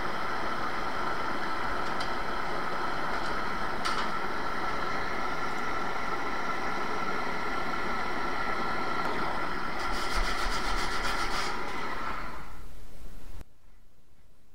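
Handheld gas blowtorch burning with a steady hiss as it heats the soft-soldered studs on a brass radiator shell to melt the solder. A light click about four seconds in and a few faint ticks later; the torch noise stops suddenly near the end, leaving a quiet background.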